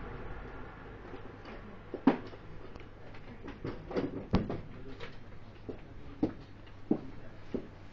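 Ballpoint pen writing in a paperback book on a hard counter: a string of irregular light taps and ticks as the pen meets the page, the sharpest about two seconds in and about four and a half seconds in.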